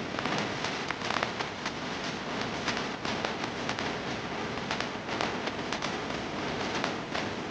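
Continuous crackling noise with many small sharp pops scattered through it.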